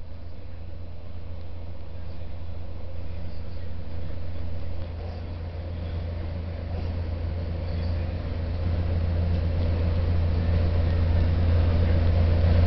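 A steady low hum that slowly grows louder, dipping suddenly about five seconds in.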